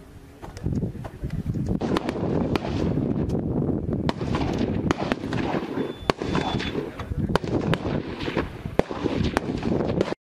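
Small-arms gunfire on a live-fire range: a dense, continuous crackle of many shots from several weapons, with louder single shots standing out at irregular intervals. It starts about two seconds in and cuts off abruptly just before the end.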